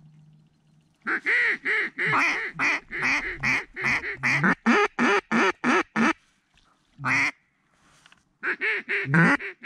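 Mallard duck call blown from the blind: a long, fast run of loud hen quacks, about four a second, then a single quack and a second fast run near the end, calling to passing ducks.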